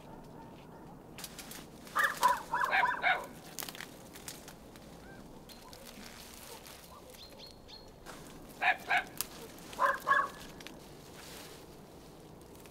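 Bird calls: a quick run of calls about two seconds in, then two shorter runs near nine and ten seconds in.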